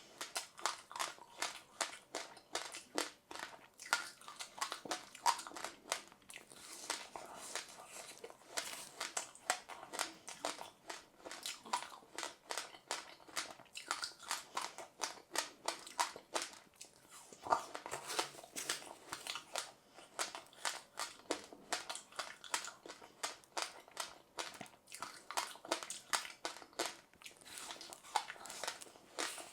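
Close-up chewing of passionfruit pulp with sesame seeds: a steady run of crisp crunches, several a second, as the seeds crack between the teeth.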